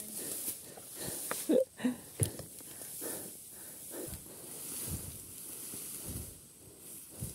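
Heavy breathing and the rustle of tall grass as the rider moves beside the stopped dirt bike, with a short grunt and a sharp knock about two seconds in.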